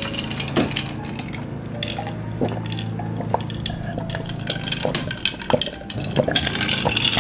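Ice water being drunk in gulps from a plastic cup, with small clinks and knocks of ice and cup.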